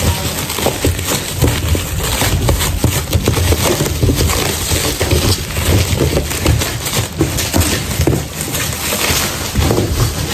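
Plastic stretch wrap crinkling and tearing as it is pulled by hand off a large cardboard box, a dense, continuous crackle.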